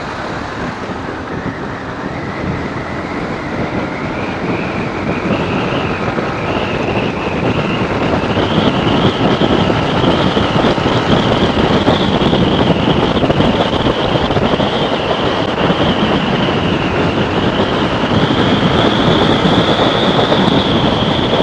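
TVS Apache RTR 180 motorcycle ridden hard, engine and wind noise on the rider's mic, getting louder over the first eight seconds or so with a high whine that rises in pitch as it speeds up.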